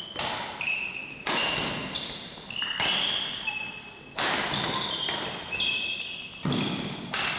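Badminton doubles rally in a sports hall: a string of sharp racket hits on the shuttlecock, echoing in the hall, with high squeaks of court shoes on the floor and footstep thuds in between. A heavier thud comes near the end.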